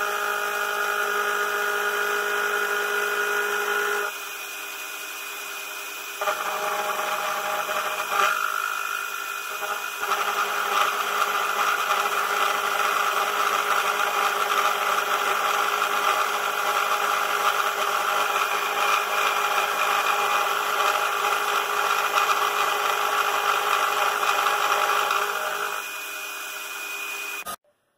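Homemade CNC mill's spindle motor whining steadily while an 8 mm end mill cuts 6061 aluminium. The cutting noise drops back for about two seconds around four seconds in, then comes back louder, and stops suddenly near the end.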